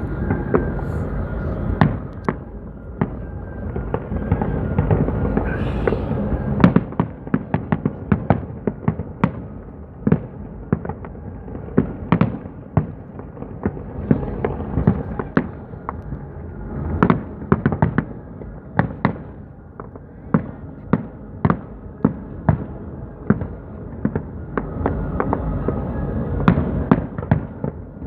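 Fireworks show: aerial shells bursting in a rapid, irregular string of sharp bangs, dozens of them, coming in thick volleys, over a steady background din.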